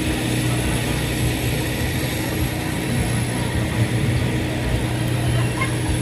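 Steady low mechanical drone with a constant hum that holds the same level throughout.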